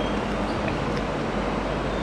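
Steady, even rushing background noise, with a few faint soft ticks of fingers mixing rice and fish curry on a plate.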